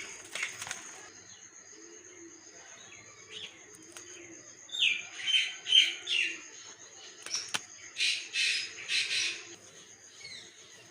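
Small birds chirping in short, falling high-pitched calls, in a cluster about five seconds in and another about eight seconds in.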